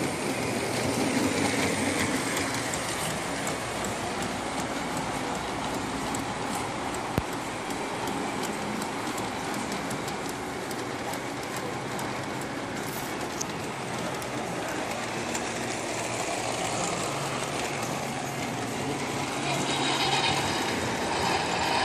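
Electric model trains running on a three-rail layout: a steady rolling rumble of wheels on the track with light clicking, growing louder near the end.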